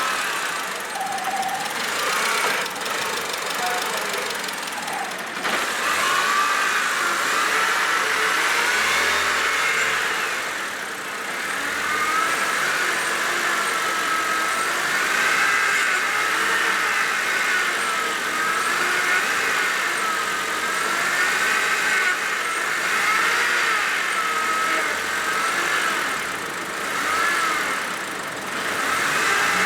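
2010 Honda Civic engine idling, with a high whine that wavers slowly up and down in pitch.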